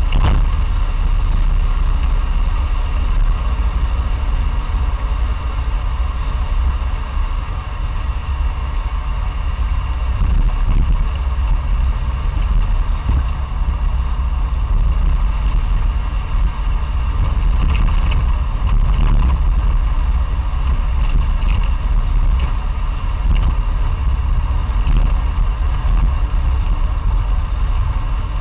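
Classic Fiat 500's air-cooled two-cylinder engine running steadily while the car is driven, a deep, even drone that hardly changes.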